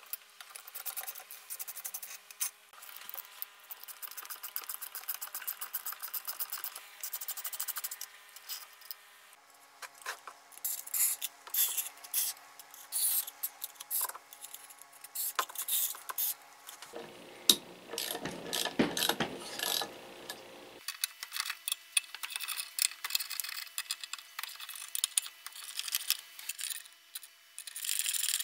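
Hand-tool work on a Makita 1800 electric planer's aluminium motor housing: fast clicking of a ratchet driver turning a screw, scattered clicks of metal parts, and a cloth rubbing inside the motor, loudest about two-thirds of the way through.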